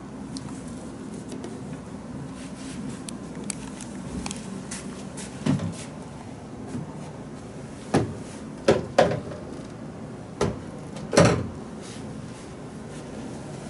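Hard knocks and clunks of supplies being handled and set down at a sink counter: about half a dozen sharp knocks, the first about five seconds in and most of them in a cluster between about eight and eleven seconds.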